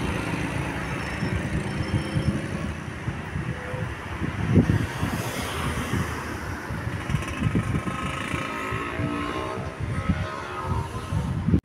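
Road traffic going by, with irregular low thumps of wind buffeting the microphone.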